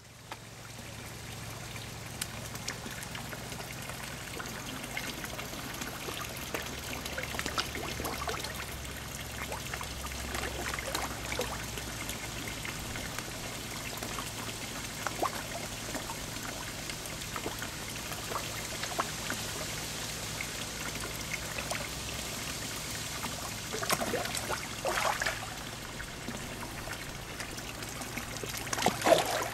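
Water trickling and splashing steadily at the surface of a garden fish pond where the fish are feeding on floating pellets, with a few louder splashes near the end.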